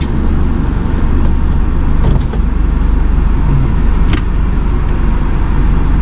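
Vehicle engine idling, heard from inside the cabin as a steady low rumble, with a few faint clicks.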